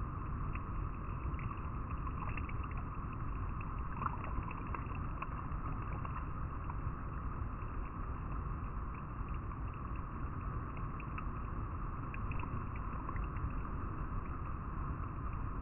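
River water rushing over rocks: a steady, even flow sprinkled with many small splashes and trickles.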